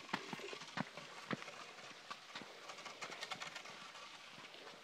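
Footsteps on a dirt trail, with a wooden walking stick knocking and scraping along the ground: light, irregular taps and knocks at an uneven pace.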